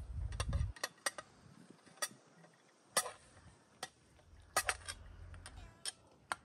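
Cutlery clinking against dishes: more than a dozen sharp, irregular taps and clicks, a few with a short ring.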